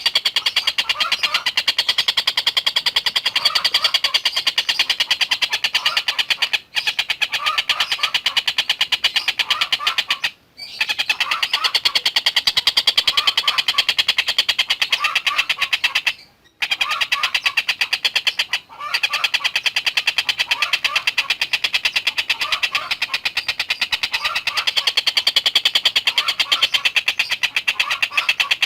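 Stork-billed kingfisher (tengkek buto) calling a continuous, very rapid high-pitched chatter, with short lower chirping notes repeating about every second. The sound breaks off briefly four times.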